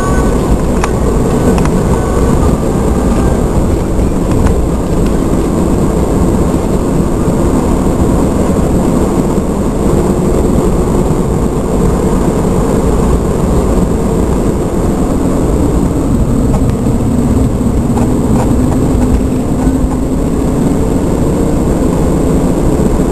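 A vehicle driving along a winding road, heard from on board: a steady mix of engine and tyre noise with no let-up.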